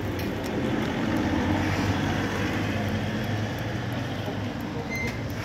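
Steady street traffic noise with a continuous low engine hum.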